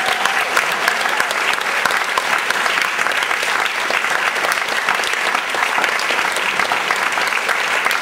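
Audience applauding steadily, many hands clapping densely together.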